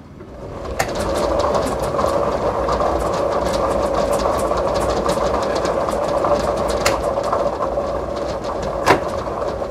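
Lottery ball draw machine starting up and running: a steady motor hum that builds over the first second, with the balls clattering around inside its clear drum.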